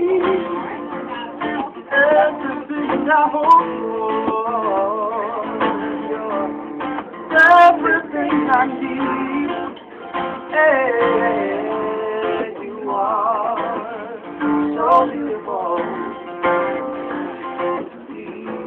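Cutaway acoustic guitar being strummed, with a voice singing a wavering, vibrato-laden melody over it at intervals.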